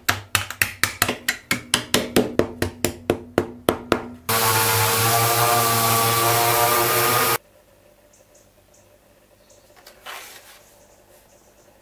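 Ball-peen hammer tapping tight-fitting laser-cut plywood pieces home, about five quick knocks a second for four seconds. Then a pneumatic random orbital sander runs on the wood for about three seconds, a steady hiss with a whine, and cuts off suddenly. A brief faint scrape follows near the end.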